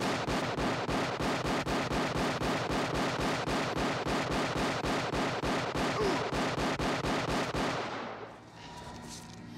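Sustained automatic rifle fire: rapid, evenly spaced shots, about five a second, for nearly eight seconds, then it stops abruptly.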